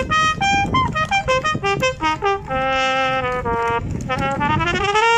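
Solo trumpet playing a melody: a run of separate notes, a longer held note about halfway through, then a smooth upward slide into a held high note near the end.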